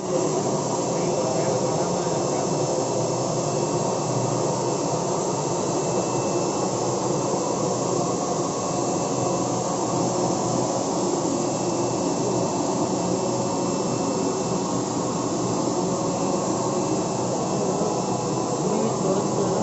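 UV flatbed printer with Ricoh Gen5 printheads running while it prints: a steady whirring machine noise with a faint high whine.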